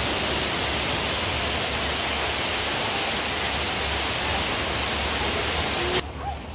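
A tall indoor waterfall rushing: a loud, even wash of falling water that cuts in sharply and cuts off about six seconds in.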